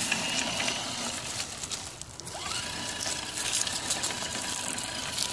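Axial SCX10 Dodge Ram Power Wagon RC crawler driving over grass: its electric motor and gears whine steadily, rising in pitch as it speeds up about two seconds in.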